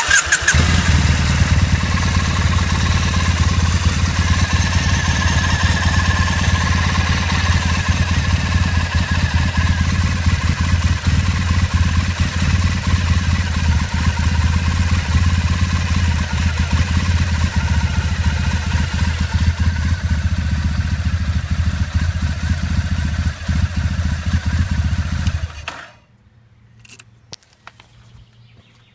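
Motorcycle engine starting and then idling steadily, with a higher whine over the engine note: the strange noise the owner wants identified. The engine is switched off suddenly about 26 seconds in, followed by a few light clicks.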